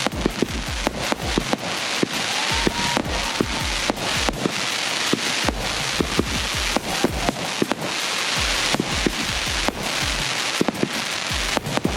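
Consumer fireworks going off in rapid succession: a dense string of sharp bangs, several a second, over continuous crackling, with a faint rising whistle about two and a half seconds in.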